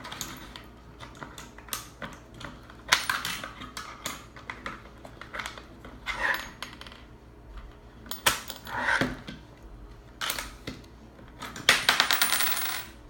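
A metal token is fed into an OJMAR coin lock and drops through it, with metal clicks and clattering from the lock mechanism and key. Inserting the token releases the inserted key. There are scattered clicks and several short rattles, the longest and loudest near the end.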